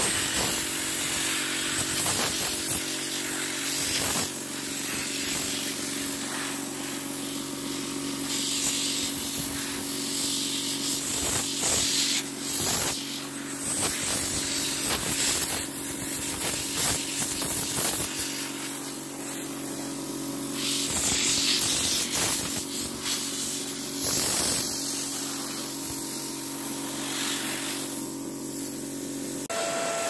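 The two small cooling fans of a 3Com Baseline Dual Speed Hub 24 (3C16593) running with a steady hum and hiss; one of the fans is excessively noisy. Short clicks and knocks break in here and there.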